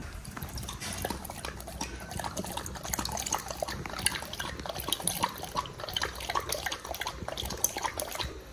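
Large black dog lapping at a plate with its tongue: a quick run of wet licking smacks.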